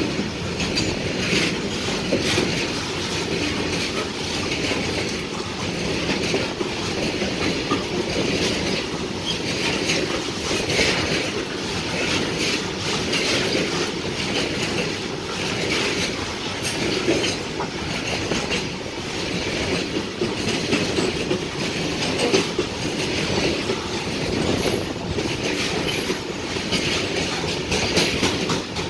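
Indian Railways BCNA covered freight wagons rolling slowly past. Their steel wheels clatter steadily over the rail joints.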